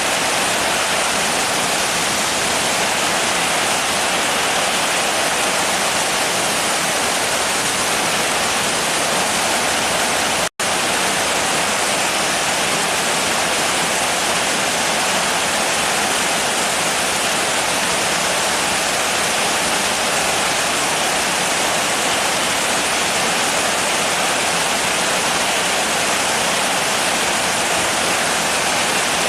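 Steady, heavy rain: a dense, even hiss with no single drops standing out. About ten seconds in the sound cuts out for a split second and resumes unchanged.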